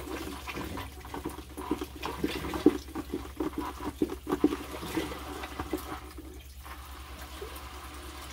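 Canister aquarium filter being primed: water gurgling and sloshing through it as the priming button is pumped, over the steady hum of the filter's motor. The gurgling stops about six seconds in, leaving the hum.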